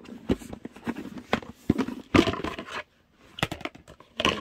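Handling noise of small toy figures and their plastic storage case: scattered light clicks and knocks, with a short louder rustle about two seconds in.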